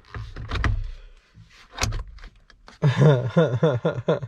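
A few clunks and knocks as a steering wheel is set back onto its column, then a man's voice near the end.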